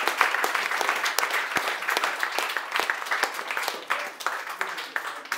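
Small audience applauding by hand, the clapping thinning out and fading.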